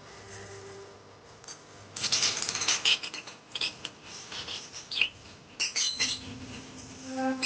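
Pet birds chattering in quick, sharp high chirps and clicks, busiest from about two seconds in.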